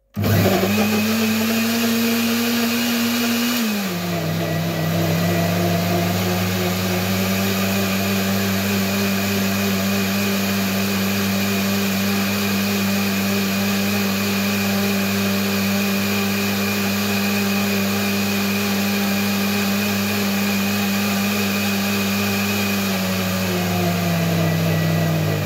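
Countertop blender's motor running loud, blending fruit and juice into a smoothie. Its steady hum drops to a lower pitch about four seconds in, as the jar's contents are drawn into the blades, and holds there.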